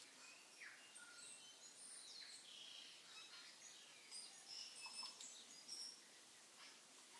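Faint scraping with many short, high squeaks and a few light clicks as a metal fork mixes ricotta and shredded chicken against a stainless steel bowl.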